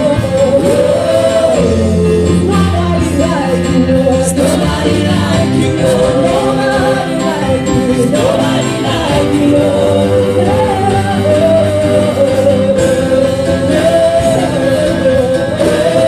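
Live gospel worship singing: a group of women's voices singing together into microphones, over steady held instrumental backing.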